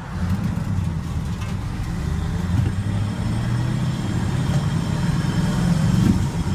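Ford F-350 pickup's engine running under way, heard from inside the cab as a steady low rumble that gets a little louder near the end. The exhaust is very quiet, muffled by headers and a large semi-truck muffler.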